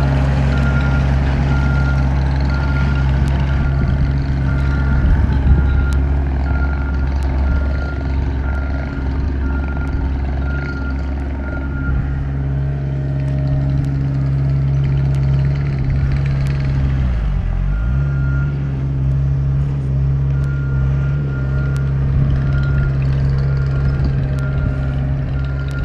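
Skid steer engine running steadily under work. For much of the time its backup alarm beeps about every two-thirds of a second as it reverses. A little past the middle the engine pitch dips briefly under load and recovers.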